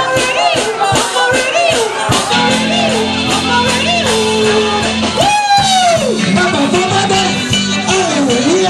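Live ska band playing, with vocals over the instruments, heard from among the audience in a crowded room. About halfway through, a long high note slides down in pitch.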